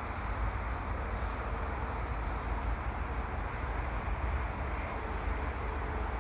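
Steady low rumble and hiss of a slow-moving diesel freight train mixed with highway traffic, with a faint steady tone underneath.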